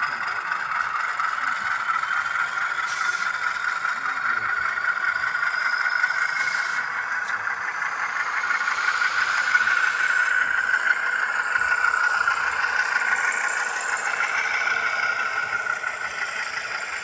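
Model diesel locomotive's onboard sound system playing a steady diesel engine running sound through its small speaker while the locomotive rolls along the track.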